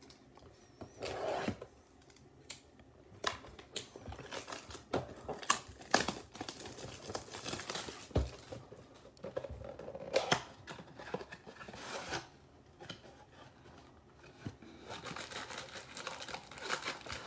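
Plastic shrink-wrap being torn off a Topps Chrome Update mega box and crinkled by hand, with irregular crackles and clicks. Near the end, cardboard rustles and scrapes as the packs are pulled out of the box.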